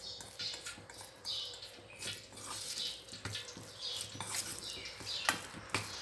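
Metal spoon stirring and mashing seasoned minced pork in a stainless steel bowl: repeated wet scraping strokes, with a few sharp clinks of the spoon against the bowl.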